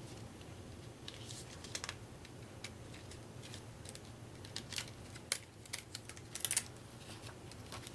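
Glossy pages of a small stapled rule booklet being peeled apart and turned: scattered light paper crackles and ticks, the pages sticking together because of their gloss.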